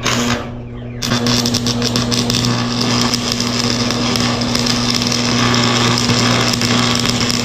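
Electric arc welding: the arc's steady crackle starts about a second in, over the low hum of the welding machine.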